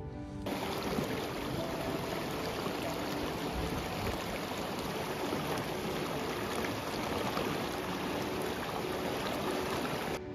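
Steady rushing of stream water, cutting in sharply about half a second in and cutting off just before the end.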